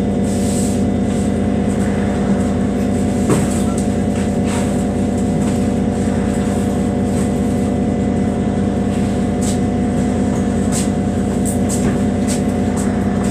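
Heuliez GX 137 L city bus engine running steadily at idle, heard from inside the bus, with a few faint clicks and rattles over the hum.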